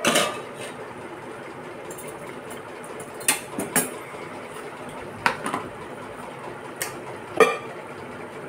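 Steel utensils clinking as a perforated skimmer is laid on the steel plate covering a pan of noodles, over a steady hiss from the stove and the covered pan. Several more sharp clinks and knocks follow as a steel mug and a plastic bowl are set down on the counter, the loudest about seven seconds in.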